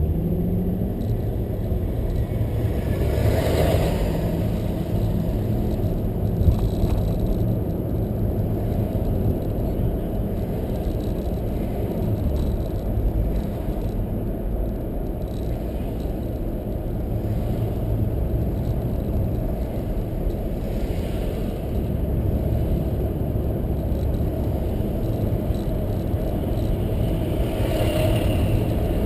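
A car being driven along a road: steady low rumble of engine and tyres, with two brief louder swooshes, one about three seconds in and one near the end.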